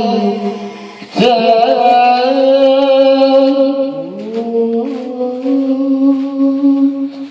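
A man singing an Arabic song into a handheld microphone, drawing out long held notes. A phrase ends about a second in, and a new one starts; about four seconds in his voice climbs to a higher note and holds it.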